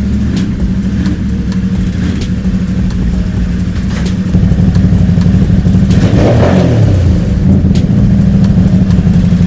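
Can-Am Renegade XMR 1000R's Rotax V-twin engine idling, getting louder about four seconds in, with a brief change in its note about six seconds in.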